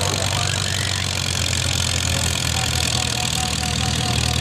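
Antique tractor engine idling steadily.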